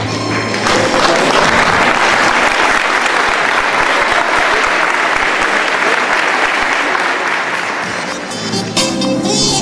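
Audience applauding over background music; the applause dies away near the end, leaving the music.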